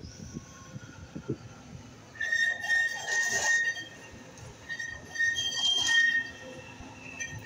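Citadis Dualis tram-train approaching over curved track and switches, its wheels squealing in a high, steady tone that comes and goes in two stretches, starting about two seconds in and again about five seconds in.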